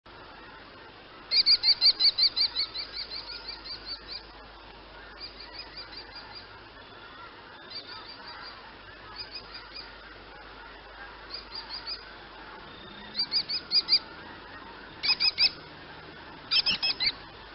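Kestrel calling: rapid runs of high, sharp repeated notes, about seven a second. A long run of some twenty notes, loud at first and fading, is followed by several shorter bursts of three to six notes, the last few louder again.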